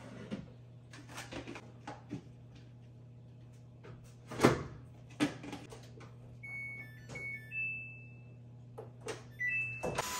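Top-loading washing machine being set going: a few clatters and knocks, with a loud knock about four and a half seconds in as the lid shuts, then short high electronic beeps at several pitches from the control panel as settings are chosen and the cycle is started. Right at the end a cordless stick vacuum starts running with a steady hum.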